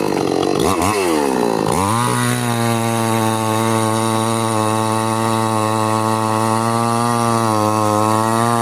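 Chainsaw engine running at high revs. Its pitch drops sharply and comes back up twice in the first couple of seconds, then it runs steadily.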